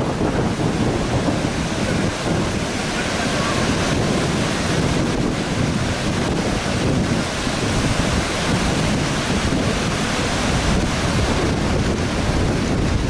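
Heavy storm surf breaking and rushing up a beach, with strong wind buffeting the microphone.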